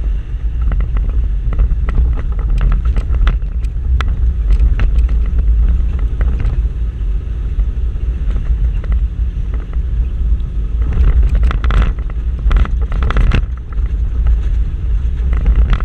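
Toyota Land Cruiser 120 rally car heard from inside the cabin while driving a rough dirt track: a steady low engine and road drone with repeated knocks and rattles, thickest in a cluster about two-thirds of the way through.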